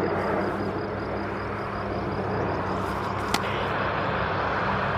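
A steady roar of distant engine noise with a low hum under it, and one sharp click a little after the middle.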